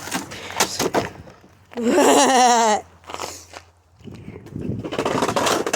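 Footsteps and knocks of someone handling and carrying a heavy object, with a loud, wavering, drawn-out vocal sound lasting about a second, a little under two seconds in.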